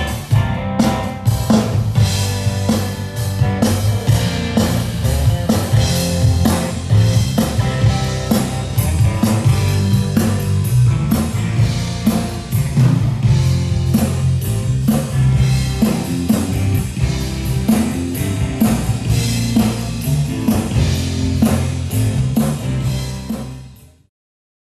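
A rock band playing drums, bass and electric guitar together, a full driving groove that fades out about a second before the end.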